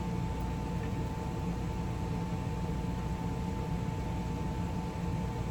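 Steady mechanical hum and hiss with a thin, constant high whine above it, like a fan-driven appliance running.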